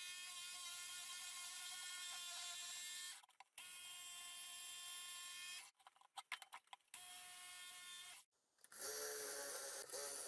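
Ryobi cordless jigsaw running with a steady whine as it cuts laminated chipboard. It stops briefly about 3 s in, runs again, then comes on and off in a few short pulls of the trigger before running once more. Near the end a cordless drill starts up, with a lower-pitched whine.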